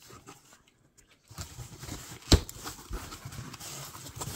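Cardboard shipping box being opened by hand: the flaps rustling and scraping as they are folded back, with a sharp knock a little over two seconds in.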